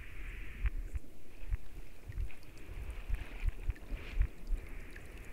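Designed deep-sea underwater ambience: an uneven low rumble with soft knocks, under a hiss that swells and fades every second or so.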